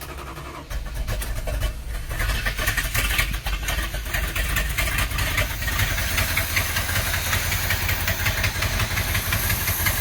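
Dodge 360 small-block V8 catching and running, its revs settling toward idle. It may be running only on gasoline poured into the carburettor's fuel bowl: the owner is not sure it is pulling fuel from the tank yet.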